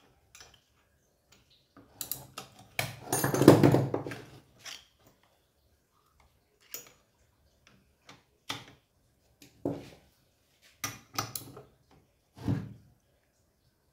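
Wrenches clinking and knocking on a chainsaw's flywheel nut as it is held with one spanner and tightened with the other: scattered metallic clicks, with a longer clatter about three seconds in.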